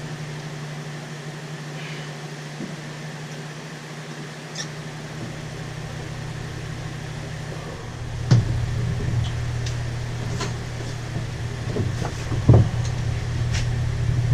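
Steady low hum that gets louder about eight seconds in, with scattered clicks and knocks from hardware being handled and fitted while a shower head holder is mounted on a camper shower wall.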